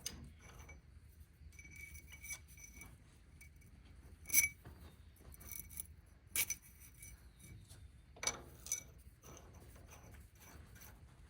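Metal parts and tools clinking and knocking against each other, a run of sharp taps with short ringing tones after them. The two loudest knocks come about four and a half and six and a half seconds in.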